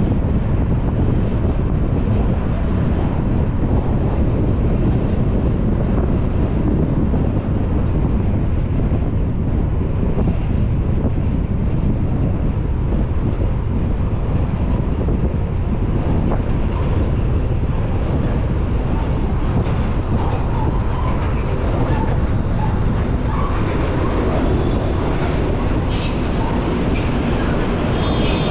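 Car driving at speed on a highway: a steady low rumble of tyres on the road, with some wind noise. A single sharp click comes near the end.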